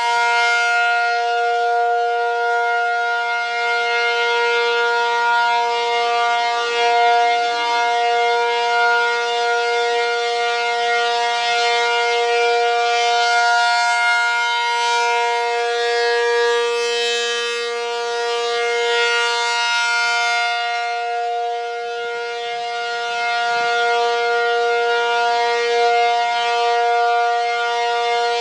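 ACA P-50 outdoor warning siren sounding a steady tone for its routine monthly test. The pitch holds level while the loudness swells and fades slowly.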